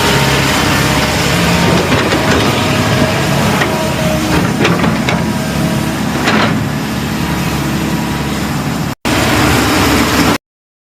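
Heavy earthmoving machinery engine running steadily, with a few sharp knocks over its middle stretch. The sound cuts off abruptly near the end.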